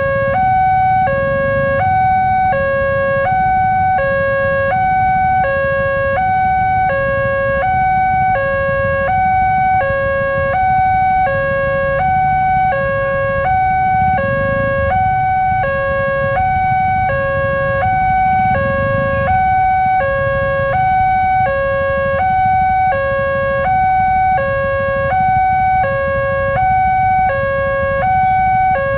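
Electronic railway level-crossing siren sounding a continuous hi-lo two-tone alarm, each tone held about two-thirds of a second, warning that a train is approaching. Road traffic rumbles underneath, with vehicles passing twice in the middle.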